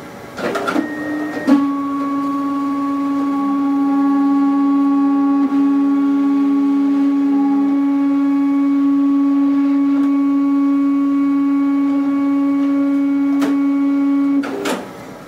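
Zebra ZXP Series 8 card printer's motors running a cleaning cycle with the cleaning card fed in: a steady, even hum that starts about a second and a half in, loses a lower layer about halfway through, and stops suddenly near the end.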